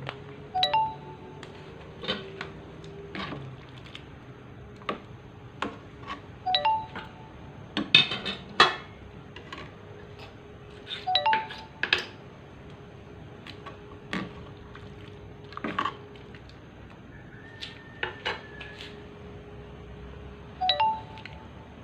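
A metal ladle knocking and scraping against an aluminium wok of simmering coconut-milk broth, in scattered clinks with the loudest cluster about eight seconds in. A short high chirp recurs four times.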